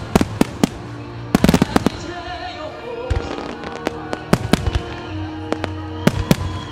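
Starmine fireworks display: firework shells bursting in rapid volleys of sharp bangs, in clusters about a second and a half in, around four and a half seconds in and near the end. Music plays underneath.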